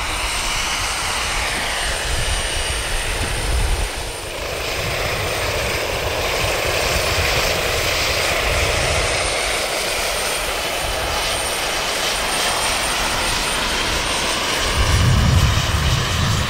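Radio-controlled turbine-powered scale Kaman K-MAX helicopter in flight: a steady turbine whine over the sound of its intermeshing rotors, the pitch rising and falling as it passes. A burst of low rumble comes near the end.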